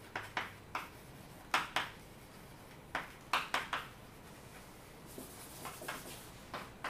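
Chalk writing on a blackboard: a run of short tapping, scratching strokes. About five seconds in, a softer high rubbing hiss as chalk is wiped off the board by hand.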